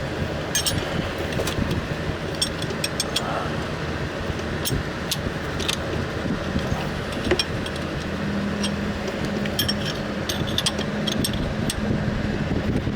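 Metal clicks and clinks of hand tools working an AC clutch bearing installer tool being reseated and tightened, coming in small irregular clusters over a steady background noise. A low steady hum comes in about eight seconds in.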